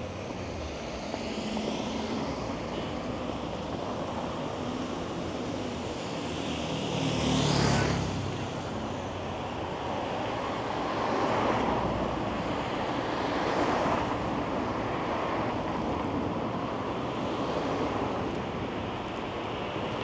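City street traffic: several cars passing one after another over a steady background hum, the closest and loudest passing about seven to eight seconds in.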